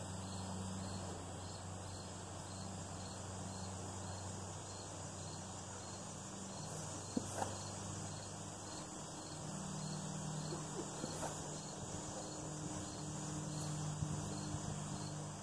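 Steady outdoor chorus of crickets and insects over a low steady hum, with a few faint clinks of a riveted mail hauberk's rings as it is shifted on the body, about halfway through and near the end.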